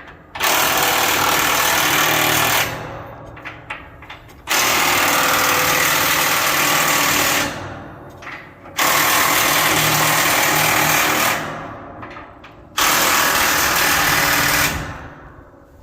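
Cordless electric impact wrench running in four bursts of two to three seconds each, rattling as it drives bolts, each burst starting suddenly and trailing off.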